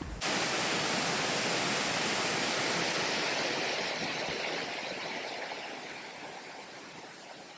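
Rushing water of a waterfall cascade, a steady dense hiss that starts abruptly and slowly fades away.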